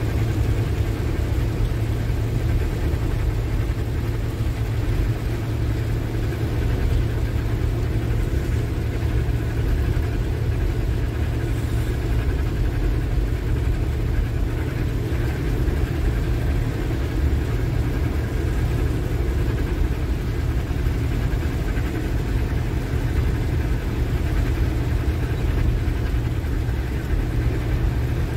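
Truck engine running steadily with road noise, heard from inside the cab while driving at an even speed.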